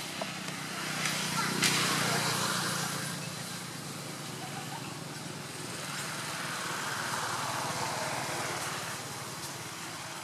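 Motor vehicle engines running and passing, with a steady low hum that swells twice, once about two seconds in and again for a few seconds near the end.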